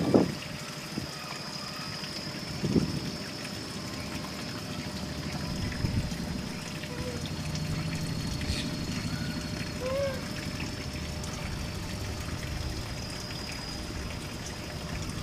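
Steady outdoor ambience like trickling water, with a faint steady high-pitched tone over it. There are a couple of short faint chirps, and a brief knock about three seconds in.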